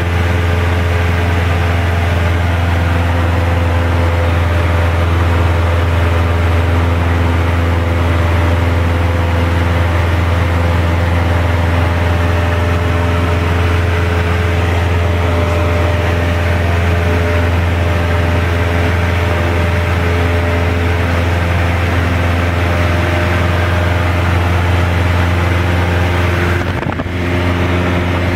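Cessna 172's piston engine and propeller in steady flight, heard inside the cabin as a constant low drone with a row of steady tones above it. The level dips briefly near the end.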